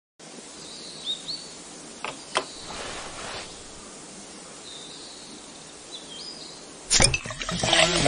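Outdoor ambience with a steady background hiss and a few bird chirps, broken a little after two seconds by two light clinks in quick succession. About a second before the end, music comes in with a sharp hit.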